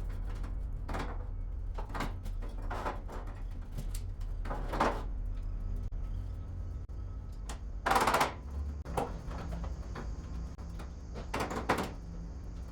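Steel pallet racking being assembled: scattered metal knocks and clunks, with one loud clang about eight seconds in and two more near the end, over a steady low hum.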